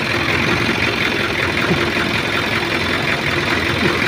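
Isuzu 4JG2 four-cylinder diesel engine idling steadily, running with the injection pump's fuel shutoff solenoid (magnetic switch) disconnected.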